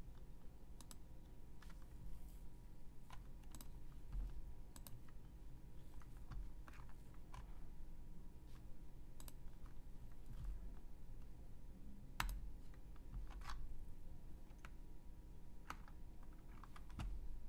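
Scattered, irregular clicks from a computer mouse and keyboard while navigating a web page, over a faint steady hum.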